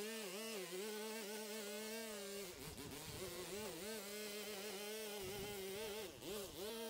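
String trimmer running at high speed with a steady buzz, its pitch dipping briefly and recovering several times as it loads up in the weeds or is eased off the throttle.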